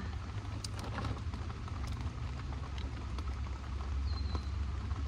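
Rain falling on the bike camper, a steady patter of scattered drops over a low rumble.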